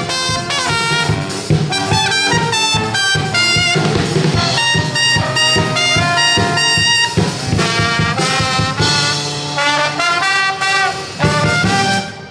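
Brass band playing, many quick notes over a loud ensemble; the music cuts off abruptly near the end.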